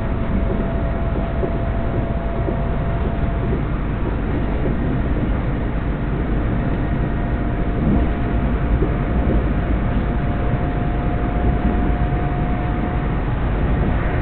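Passenger train running at speed, heard from inside the carriage: a steady rumble of wheels on the track with a faint whine that rises slowly in pitch. One short knock about eight seconds in.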